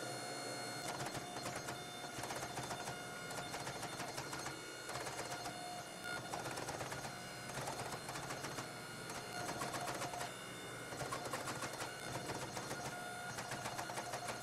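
Forging press working a glowing forge-welded steel billet: a steady mechanical hum with dense, irregular crackling clicks throughout.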